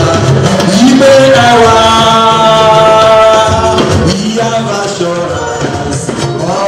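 Church choir singing into microphones over a PA system, with drum accompaniment keeping the rhythm; the voices hold one long note in the middle.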